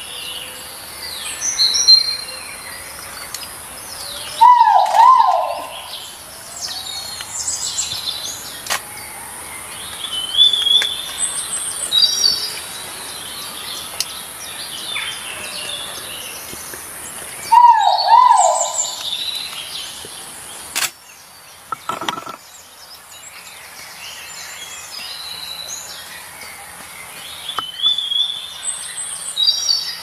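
Rainforest birdsong: a loud, low two-note call rings out twice, about 5 seconds in and again about 18 seconds in, typical of a great argus pheasant. Many higher chirps and whistles from other forest birds run around it.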